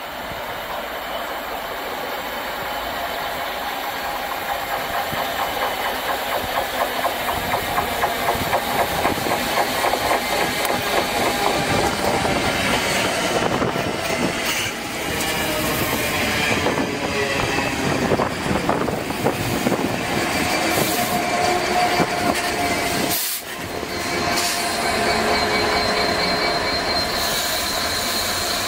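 Freight train hauled by Class 66 diesel-electric locomotives (EMD two-stroke V12) passing close by. The engine drone and a regular clatter of wagon wheels over rail joints grow louder as it nears. In the last few seconds a steady high wheel squeal joins in.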